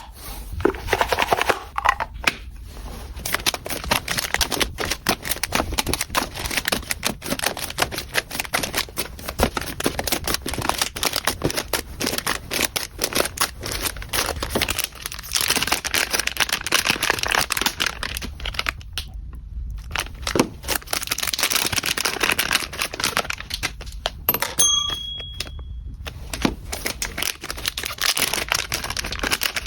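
Packaging being handled: dense rustling, crinkling and clicking of wrapping, with short pauses about two-thirds of the way through and again near the end.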